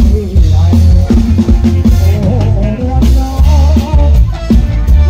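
Live Thai ramwong sam-cha dance music played loud through a rot hae sound truck's speaker stack. Electric bass and drum kit give a heavy, steady beat under a wavering melody line.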